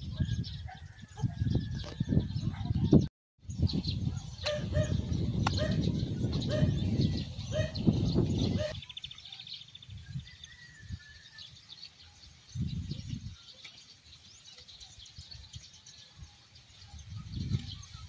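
Birds chirping faintly and steadily in the background, under irregular low rumbling and rustling that is loud in the first half and cuts out completely for a moment about three seconds in, then dies down to a few short bursts.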